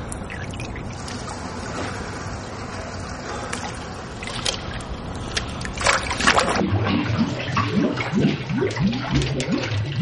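Swimming-pool water sloshing and lapping, with a splash about six seconds in as a swimmer goes under, then a run of short gurgling bubble sounds.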